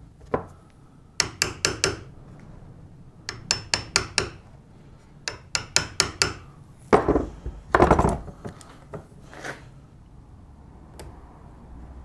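Wood chisel pushed by hand, paring thin slivers of softwood from a hinge recess in a door edge: runs of sharp clicks as the blade cuts through the fibres, then two louder, heavier knocks about seven and eight seconds in.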